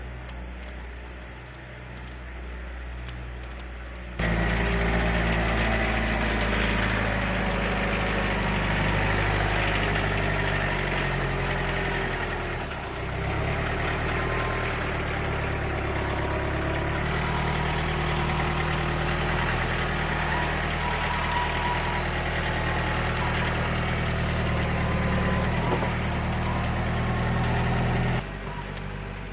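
A motor engine running steadily. It gets much louder about four seconds in, dips briefly around the middle, and falls back to a lower level near the end.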